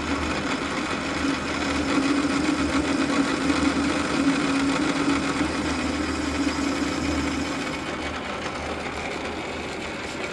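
South Bend Heavy 10 toolroom lathe running under power, a steady motor-and-gear whine with a low hum. The whine fades and the machine grows a little quieter after about eight seconds.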